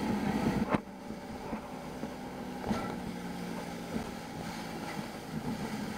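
Motorboat engine running steadily at speed, with water rushing through the wake. The overall level drops abruptly just under a second in.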